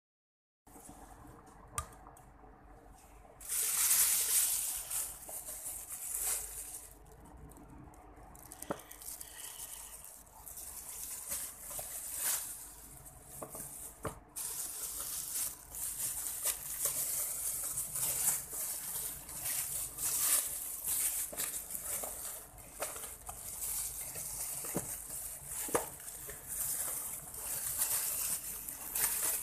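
Thin plastic carry-out bag crinkling and rustling as it is handled, with a few light knocks of paper food boxes against the table. The crinkling gets louder about three and a half seconds in.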